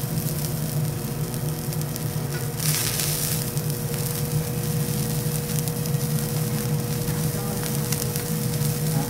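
A thick wagyu steak sizzling as it sears on a teppanyaki griddle, a steady crackling hiss, with a brief louder surge of hiss about three seconds in. Under it runs a steady low hum.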